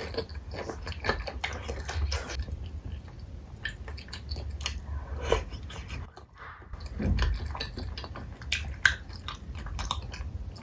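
Close-miked chewing and biting of spicy chicken feet: irregular wet smacks and small clicks of mouth, skin and bone, with a short lull about six seconds in.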